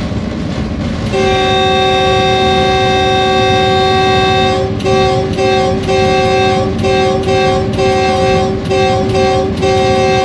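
Diesel locomotive's air horn sounding a chord: one long blast of about three and a half seconds, then a string of short blasts. It sounds over the locomotive's steady running noise, the warning signal given as the train enters a passing area.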